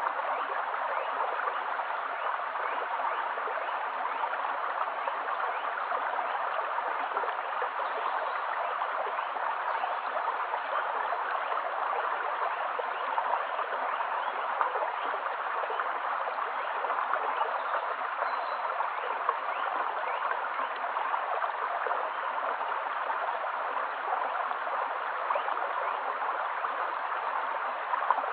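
Small stream flowing steadily over stones, an even, unbroken water sound.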